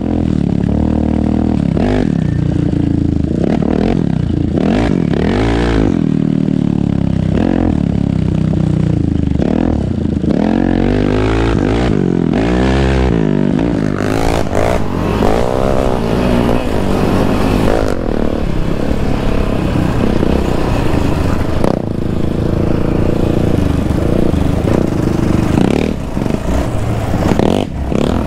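Yamaha Raptor 700R sport quad's single-cylinder engine, fitted with an aftermarket Monster exhaust, being ridden along a dirt trail. Its pitch rises and falls again and again as the throttle is worked.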